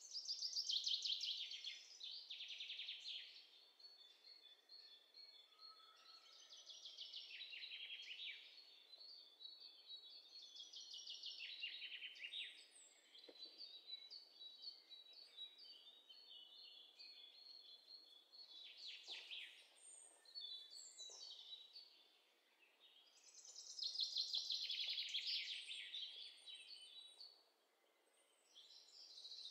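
Birdsong sound effect: small birds chirping in rapid high-pitched trills and runs of notes that come and go in waves, faint throughout.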